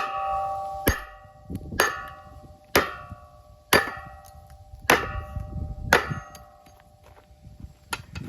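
A maul repeatedly striking the metal housing of a large electric motor to crack one side of it open: about eight heavy blows, roughly one a second, each leaving a ringing metallic tone, the last one a little weaker.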